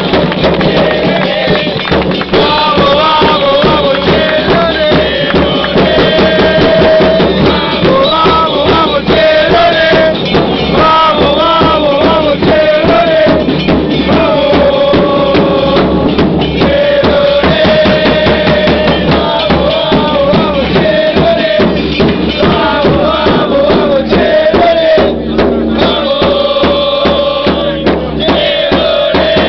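Loud music: a sung or chanted melody over steady drums and percussion.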